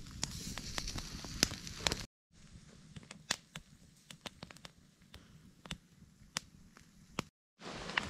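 Wood campfire crackling, with scattered sharp pops. It is loudest for the first two seconds, cuts out completely for a moment twice, and is quieter with sparser pops in between.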